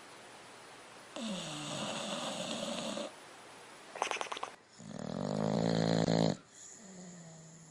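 Dog snoring loudly. A long snoring breath comes about a second in, then a short rattling snort, then a louder, buzzing snore that builds for about a second and a half and stops abruptly.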